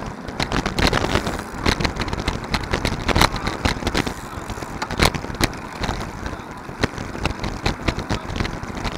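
Wind rushing over a bicycle-mounted camera and road rumble while riding in a group, with frequent irregular clicks and knocks from the bike and camera jolting over the road.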